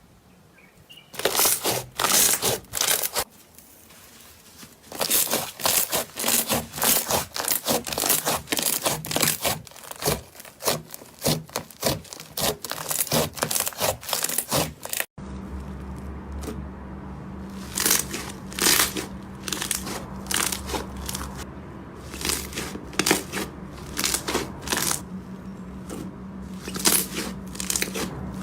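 Slime being pressed and worked by hand, giving quick runs of small crackling pops and clicks. About halfway through the crackling goes on over a steady low hum.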